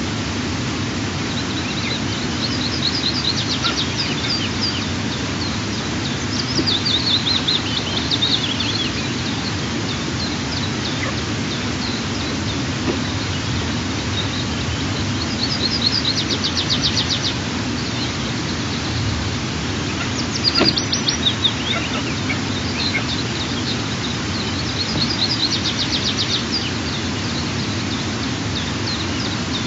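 A small songbird sings a short, high, rapid trilled phrase about four times, several seconds apart, over a steady low rushing background noise. A brief sharp click comes about two-thirds of the way in.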